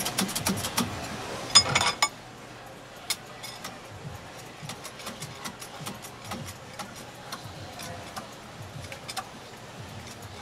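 Sharp metal clicks and ticks from the pumped handle of a hydraulic bottle-jack coconut press, over a low background hum. Dense and louder for about the first two seconds, then fainter and irregular.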